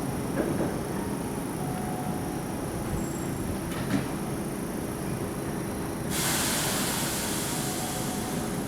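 Keihan electric train at the platform with a steady low rumble. About six seconds in, a sudden hiss of compressed air starts and keeps going.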